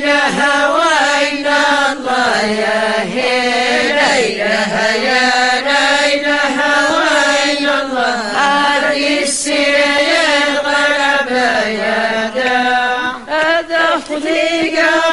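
Women's voices chanting a religious praise song (madih) together in one sustained, slowly bending melodic line.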